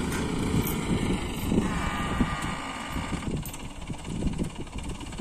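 Engine of a tractor-mounted mobile crane idling with a steady low rumble. A faint higher whine runs over it and stops a little past three seconds in.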